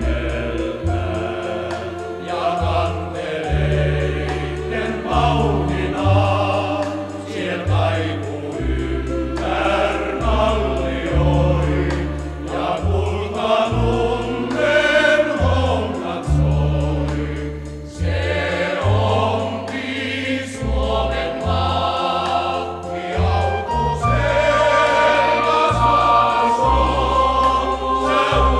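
A group of actors singing a song together in chorus, over a bass line of held low notes.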